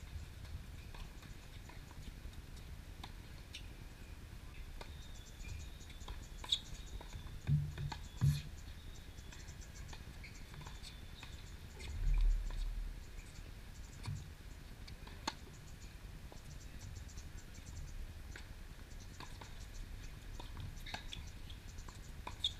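Tennis rally on a hard court: a few sharp racket-on-ball hits, the clearest about eight seconds in, among faint scuffs and ticks. A brief low rumble about twelve seconds in.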